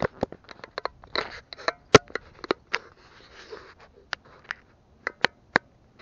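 Handling noise from a spinning rod and reel held right against the camera microphone: irregular sharp clicks and crackles, about fifteen in six seconds, with a short soft rustle in the middle.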